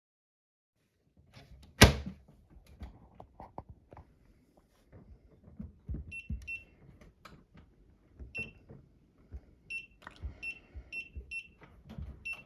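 A sharp knock about two seconds in, then light handling thumps and a series of about eight short, high electronic beeps: button presses on the control panel of a Drybo Plus pet dryer house as it is set up to dry the dog.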